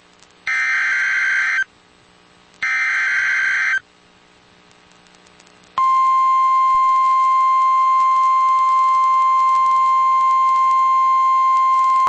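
Emergency Alert System SAME header on NOAA Weather Radio: two one-second bursts of warbling digital data tones, about a second apart. About six seconds in, the steady single-pitch 1050 Hz warning alarm tone starts and holds, marking the start of a new alert.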